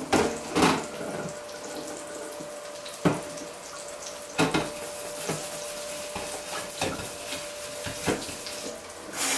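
A plate being scrubbed by hand in a stainless-steel sink with the tap off, with scattered knocks and clatters as it bumps the sink. The tap comes back on and water starts running near the end.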